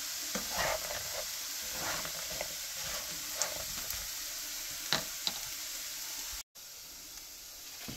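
Diced potatoes sizzling in oil in a nonstick skillet, with scattered crackles and a wooden spatula stirring and scraping through them. The sound cuts out briefly about six and a half seconds in, leaving a fainter hiss.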